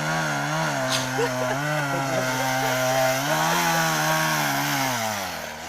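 Two-stroke chainsaw running at high revs under load, its pitch wavering as the chain bites, then dropping back toward idle near the end.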